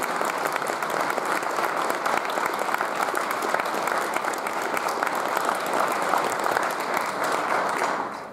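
Audience applauding, a dense steady clatter of many hands clapping that fades out near the end.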